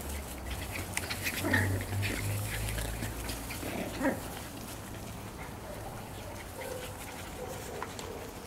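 Jack Russell Terrier puppies yelping and whining in short calls, with a thin drawn-out whine in the second half.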